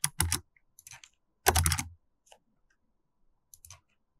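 Computer keyboard keys being pressed in a few short runs of clicks, the loudest run about one and a half seconds in: copying and pasting lines of code.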